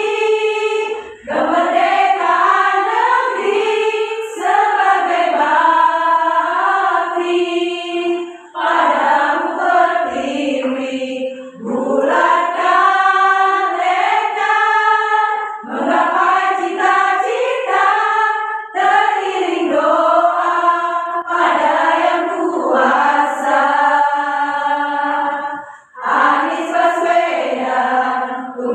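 A women's choir singing, in phrases broken by brief pauses for breath.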